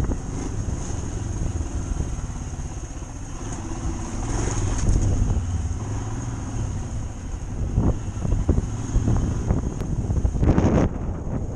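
Motorcycle engine running at low revs as the bike rolls slowly over stone paving, with a thin steady high whine above it and a brief rush of noise near the end.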